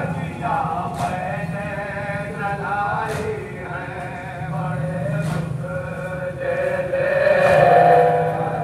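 Men's voices chanting a mournful Muharram refrain together in long held lines, loudest near the end, with a faint sharp beat about every two seconds.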